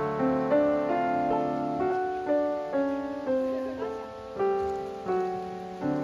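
Background piano music: a slow melody of single notes struck about once or twice a second, each ringing and fading before the next.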